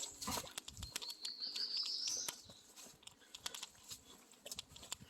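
A songbird singing a high, rising trill of quick notes lasting about a second, with scattered light ticks and a few soft steps on the trail.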